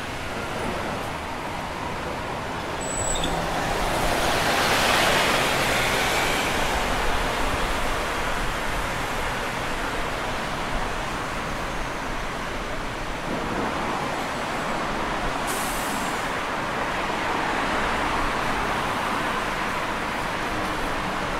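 Road traffic on a city street: a steady wash of passing vehicles. One vehicle passes close and louder about four to seven seconds in, and a brief high hiss comes around fifteen seconds.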